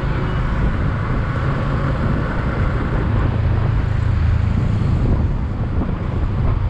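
Wind rushing over the microphone while riding a motorcycle, with the engine's low steady drone and road noise underneath.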